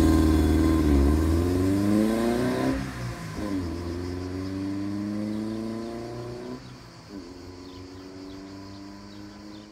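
Alfa Romeo 33 1.3's flat-four boxer engine accelerating away hard through the gears: the revs climb, drop at an upshift about three seconds in, climb again, drop at a second upshift near seven seconds, then climb once more as the sound fades into the distance.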